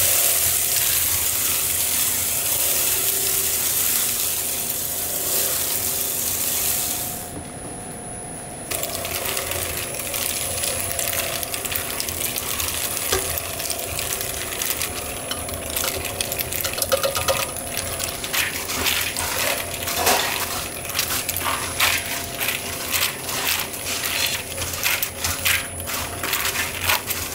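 Snack-production machinery running with a steady hum. For the first seven seconds or so there is a loud hiss of air or spray. From about nine seconds in comes a dense, rapid clatter of small hard snack pieces knocking against each other and against metal.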